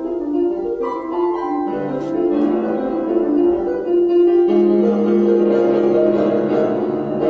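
Recorded classical music featuring piano, slow held notes and chords.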